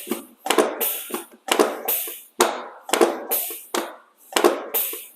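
A quick run of about ten thumps and knocks, roughly two a second, each ringing briefly, made during a chiropractic adjustment as the patient is worked on.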